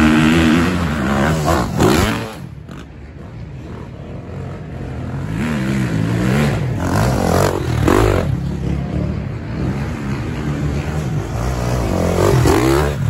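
Dirt bike engines revving under load up a steep dirt hill, the pitch rising and falling with throttle and gear changes. It is loud at first, drops away about two seconds in, then builds again as bikes climb. Near the end a bike passes close by, its rear tyre spraying dirt.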